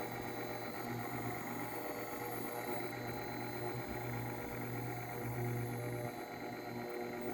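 Aobosi induction cooktop running with a low electrical hum that drops out and comes back at irregular moments, under a faint steady high whine; this is the weird sound the cooktop makes.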